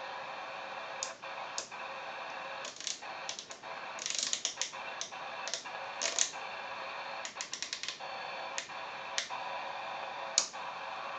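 Interference received by a CB radio on 27.145 MHz, heard through the receiver: a steady buzzing hiss with several held tones, broken by irregular clicks and crackling pops, some in quick runs. The uploader believes it is a harmonic from the signalling systems of a nearby train station.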